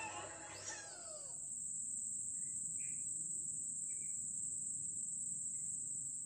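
Music fading out about a second and a half in, leaving garden ambience: a steady high-pitched insect drone with a few short bird chirps.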